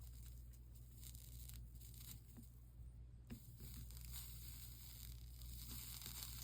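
Faint crackling sizzle of a soldering iron melting solder and flux along a stained-glass seam, building about halfway through, over a steady low hum.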